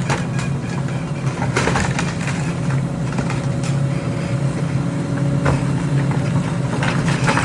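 Heavy construction machine's engine running steadily, with several sharp clanks and knocks over it.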